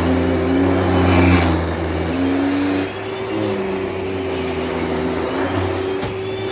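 Kenmore Whisper Tone canister vacuum cleaner running steadily, a motor hum over a rushing hiss, its pitch shifting slightly now and then.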